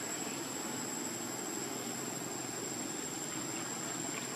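Steady high-pitched insect trill over an even background hiss, with no change in level.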